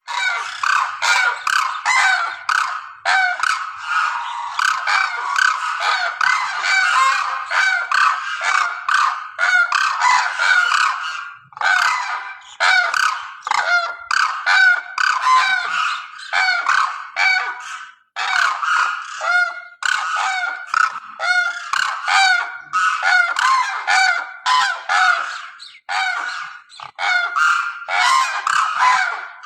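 A large flock of geese honking, with many short calls overlapping continuously.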